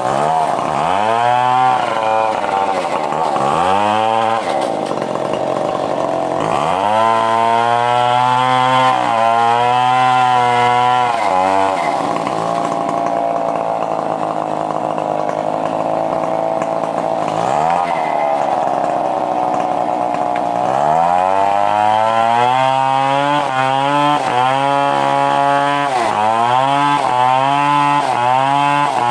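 Stihl 070 two-stroke chainsaw revving up and down repeatedly as it saws coconut wood. Around the middle it holds a lower, steadier pitch, and near the end it goes into quick, short revs about once a second.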